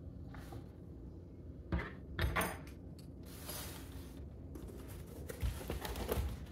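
Handling noises: a sharp knock, then a short clatter, a brief rustle, and a few lighter knocks near the end, like objects being picked up and set down on a hard surface.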